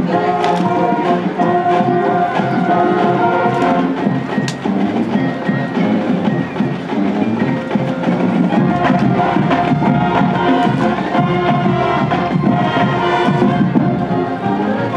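High school marching band playing as it marches: held horn notes over drumline beats and sharp percussion strikes.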